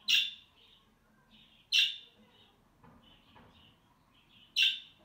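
Budgerigars chirping: three loud, sharp chirps, with softer chirps in between.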